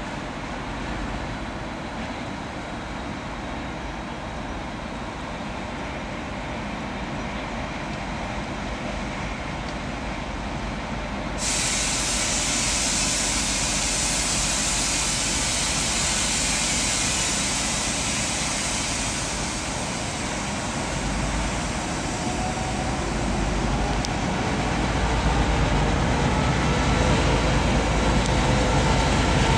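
TEP70BS diesel locomotive idling with a steady low hum. A little over a third of the way in, a loud hiss of air starts suddenly and runs about eight seconds, typical of the air brakes releasing. In the last few seconds the diesel engine's note rises in pitch and grows louder as it throttles up to pull the passenger train away.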